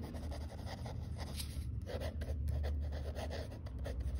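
Ballpoint pen writing on paper: a run of short scratching strokes as words are written out by hand, over a steady low hum.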